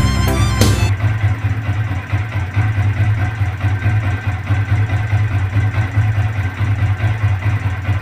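Old Yamaha Vixion's single-cylinder engine idling steadily while warming up, taking over when music cuts off about a second in.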